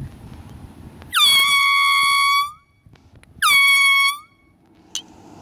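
Handheld party air horn blown twice: a blast of over a second, then a shorter one. Each swoops quickly up in pitch into a steady, high, brassy blare.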